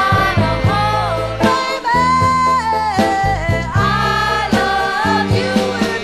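Background music: a song with a lead vocal singing long held notes over a band with bass and drums.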